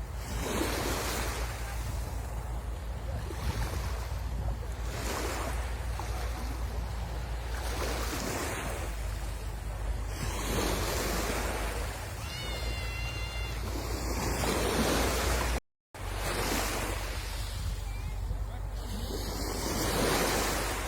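Sea waves washing onto a beach, swelling and falling about every two seconds, over a steady low rumble of wind on the microphone. A short, high, wavering sound comes about two-thirds of the way in, and the sound cuts out for an instant a little later.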